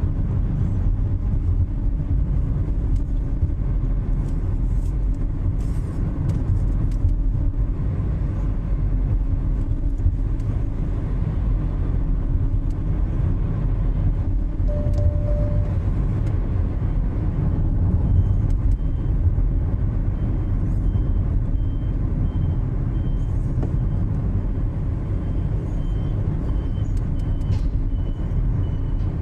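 A vehicle running with a steady low rumble, recorded for its abnormal noise. A faint, high, broken tone joins about two-thirds of the way in.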